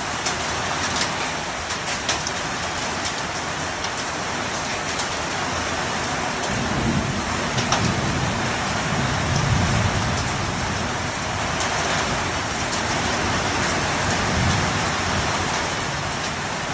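Heavy hail and rain storm pouring down, a steady hiss with scattered sharp ticks of hailstones striking. A low rumble rises from about seven seconds in and fades by about eleven seconds.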